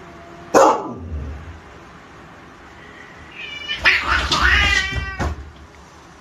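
Two domestic cats squabbling. One short, loud yowl falls in pitch about half a second in; then a burst of screeching and hissing lasts about two seconds as one cat swats at the other.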